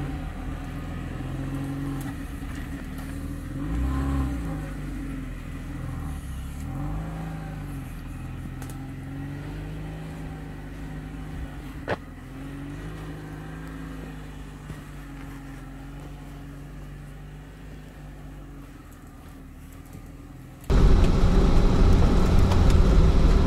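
Lada Niva's four-cylinder engine pulling away along a sandy forest track, its pitch rising and falling with the revs and fading as it drives off, with one sharp click about halfway. Near the end it cuts abruptly to the engine and running noise heard loud from on board.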